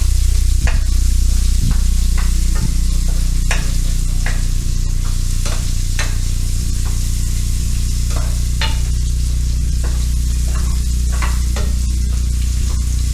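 Garlic and onion sautéing in oil in a pan: a steady sizzle, with a spatula scraping and knocking against the pan at irregular moments, about once a second, as they are stirred. A steady low hum runs underneath.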